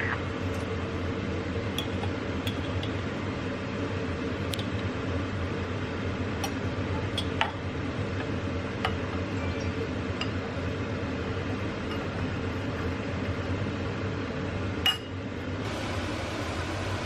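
Glass and dishware clinking now and then, a dozen or so light separate clinks, over a steady low hum.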